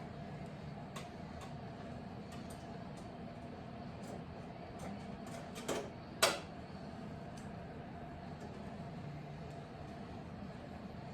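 Hand tools working on a motorcycle's handlebar riser bolts: scattered light clicks, then two sharp metallic clanks a little past the middle, the second the loudest and briefly ringing, over a steady low hum.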